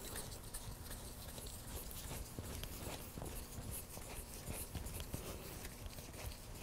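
Faint scratching and light irregular ticks as a motorcycle fork's top cap is screwed by hand into the fork tube, with the rag and gloves rubbing on it.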